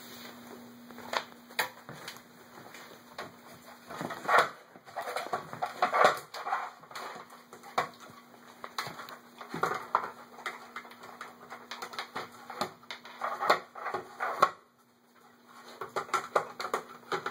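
Yellow Labrador puppy working a plastic star-shaped treat puzzle on a tile floor: irregular plastic clicks, knocks and rattles as she noses and paws its pieces, coming in busy bursts with a brief lull near the end.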